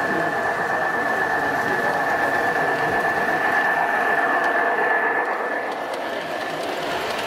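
Large-scale model diesel locomotive hauling a freight train past on garden railway track: the electric motor whines steadily over wheel and rail noise, loudest as the locomotive goes by about four seconds in, and the whine fades near the end.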